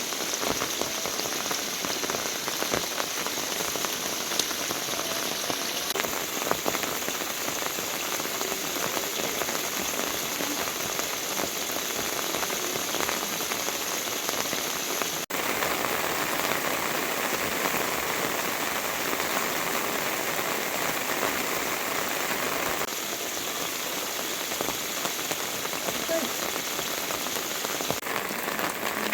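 Steady rain falling, a dense hiss with individual drops ticking on surfaces. The sound changes abruptly about halfway through.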